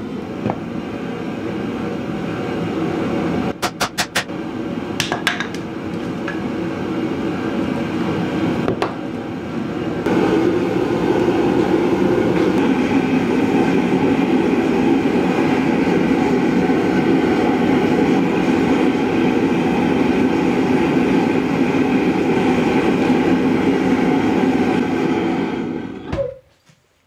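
Forge burner running with a steady rushing noise, louder from about ten seconds in, then shut off near the end once the steel glows bright orange, the forge turned off to anneal the file. A few sharp knocks come around four to five seconds in.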